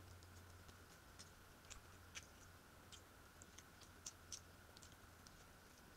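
Faint, scattered mouth clicks and smacks of a person chewing food with the lips closed, over a steady low hum.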